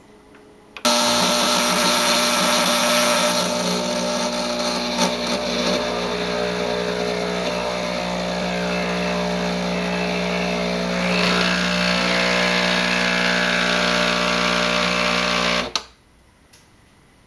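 The Breville BES870XL espresso machine's built-in conical burr grinder running, a steady motor whine over grinding noise. It starts about a second in, runs for about fifteen seconds and cuts off abruptly.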